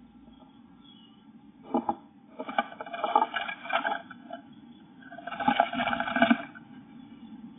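A blue tit fluttering its wings and scrabbling with its claws inside a wooden nest box, in three bursts: a short one about two seconds in, a longer one lasting a second and a half, and another near the end. A low steady hum runs underneath.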